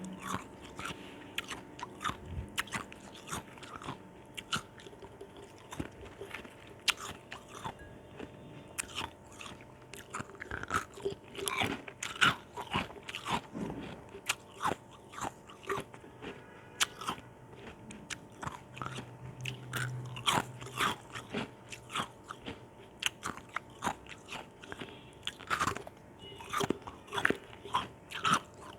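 Ice chunks with orange juice being bitten and chewed close to the mouth, giving many sharp, irregular crunches, some much louder than others.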